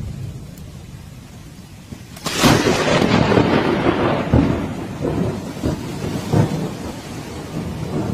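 Steady heavy rain, then a sudden sharp thunderclap about two seconds in that rolls on as a long, uneven rumble with several louder cracks.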